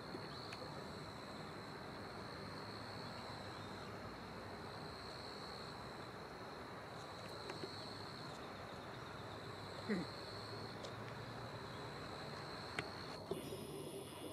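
Crickets chirring steadily, a high continuous trill. There are a few faint clicks, and a brief low sliding sound about ten seconds in.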